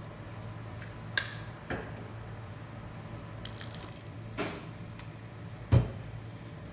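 Quiet kitchen sounds from noodles cooking in a nonstick wok: a steady low hum, a few light clicks and knocks, and a louder thump about six seconds in.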